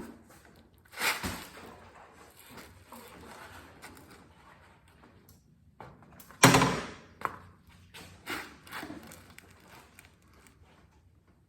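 Knocks and thuds from a motorcycle being handled and tilted over: a sharp knock about a second in, a louder heavy thud about six and a half seconds in, then a few lighter knocks.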